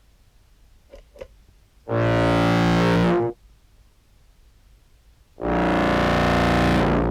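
Contrabass clarinet sample played through an octave pedal into a fuzz pedal: two loud, heavily distorted sustained notes of about a second and a half each, the second starting about two seconds after the first ends. About a second in come two faint clicks, the key attack that the fuzz makes more obvious.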